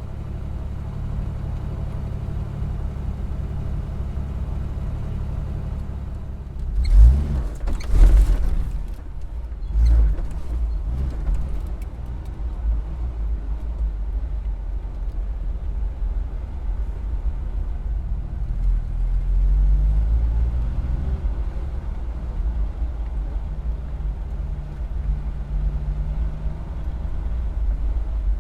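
Car engine running with a steady low rumble in stop-and-go driving. A few loud sudden knocks come between about seven and ten seconds in, and the engine pitch rises later as the car pulls away.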